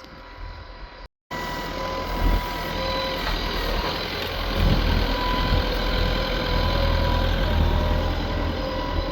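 Farm tractor engine running steadily, with a steady whine above its rumble. It cuts out briefly about a second in and comes back much louder.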